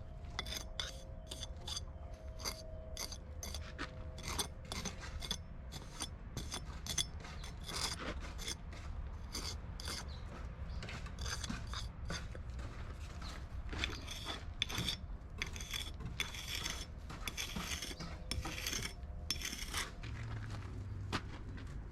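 Repeated short scraping strokes of a mason's hand tool on fresh brickwork and mortar, about one or two a second.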